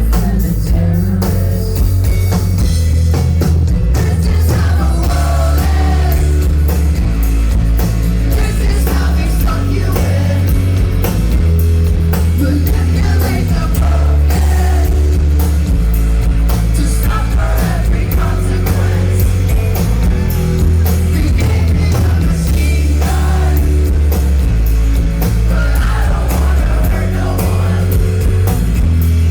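Rock band playing live: loud distorted guitars, heavy bass and drum kit with crashing cymbals, with a singer's voice over it.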